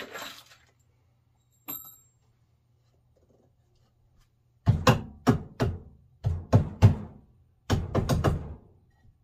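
Heavy knocks on the wooden 2x4 frame of an aquarium stand: about a dozen blows in quick groups of two or three, starting about halfway through, knocking a joint snug.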